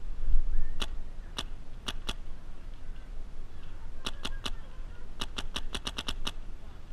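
Paintball markers firing: sharp pops, first four scattered shots, then a quick group of three, then a rapid string of about eight.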